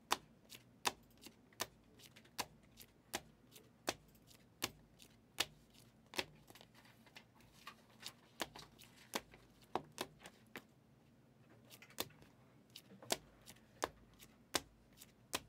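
Hard plastic trading-card cases clicking against each other as a stack of cased cards is flipped through one by one: a sharp click about every half second, with a few short pauses.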